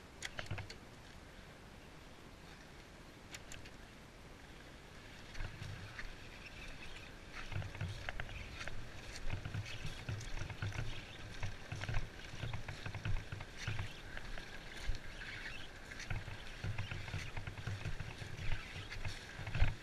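A motorcycle rolling over a rough road during a bump-start attempt in second gear. It makes irregular rumbling and scattered knocks and rattles, growing louder about five seconds in, with no steady engine note.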